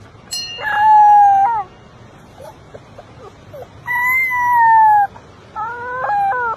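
A puppy howling three times: a long, fairly level howl, then a second that sags slightly in pitch, then a shorter one near the end that rises.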